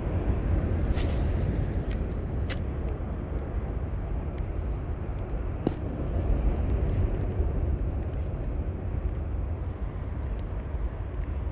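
Wind buffeting the microphone: a steady low rumble, with a few faint clicks about one, two and a half and nearly six seconds in.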